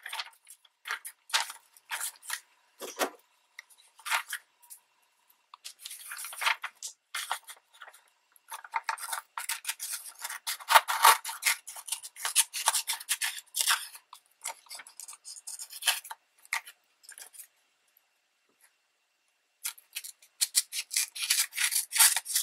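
Paper and card being handled and cut with scissors: scattered rustles and snips, with runs of quick cuts in the middle and near the end and a pause of about two seconds shortly before the end.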